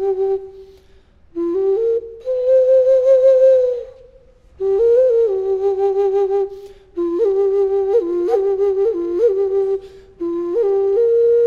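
A Maya flute (a pre-Columbian aerophone) played in about five short phrases with brief pauses between them, each phrase stepping between a few notes with quick wavering trills.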